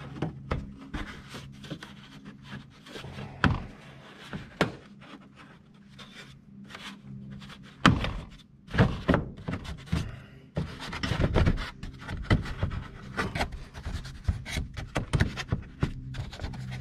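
Plastic wheel-well liner being handled and pressed into place over its mounting pegs: rubbing and scraping with a run of sharp knocks and clicks, the loudest about eight seconds in and again around eleven to twelve seconds. A steady low hum runs underneath.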